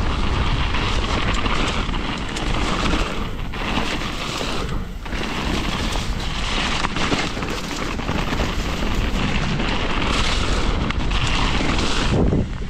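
Wind buffeting a bike-mounted camera microphone, mixed with tyre and trail noise from a mountain bike rolling fast down a wet dirt flow trail: a steady low rumble with a rushing hiss that dips briefly a few times.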